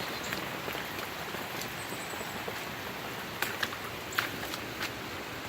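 Steady hiss of heavy rain falling, with rainwater running off. A few sharp raindrop taps land close by a little past the middle.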